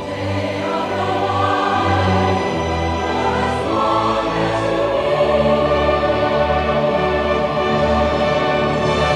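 Choir singing long held notes over an orchestra, swelling in over the first second.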